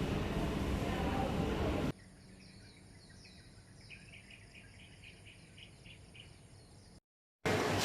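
A loud, steady noise that cuts off abruptly about two seconds in. What follows is a quiet stretch of high chirping from small creatures: a few falling chirps, then a run of rapid chirps repeating several times a second. The sound drops out completely for a moment near the end.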